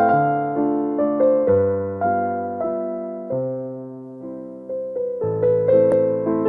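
Background music played on piano: a slow melody of struck notes that fade away, over low bass notes, going softer for a moment around the middle.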